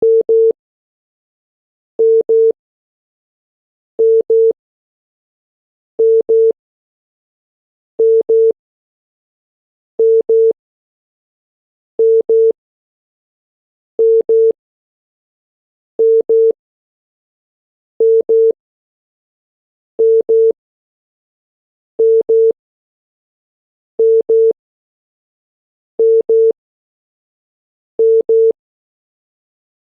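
Korean telephone number-unobtainable tone: a single 450 Hz tone in pairs of short beeps, a pair every two seconds with silence between. It signals that the dialled number is not recognised by the network as valid.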